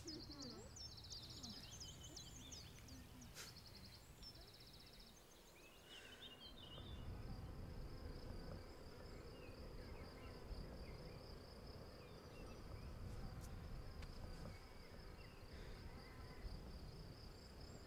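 Faint outdoor summer ambience: birds chirp briefly in the first few seconds, then a steady high insect buzz carries on, over a low rumble.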